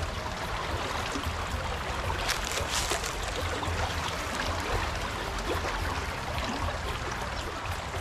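Clear spring water from a natural spring-fed stream rushing steadily over stones in a shallow channel below a small concrete weir, with a few brief splashes about two to three seconds in.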